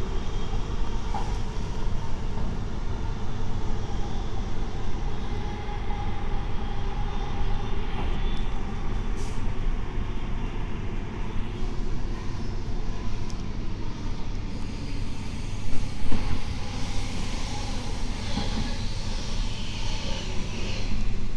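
Running noise inside a Queensland Rail SMU220 electric multiple unit under way: steady wheel-on-rail rumble and car-body noise with a faint motor tone, from a traction drive the uploader takes for a Bombardier IGBT VVVF inverter. A brief louder bump comes about three-quarters of the way through.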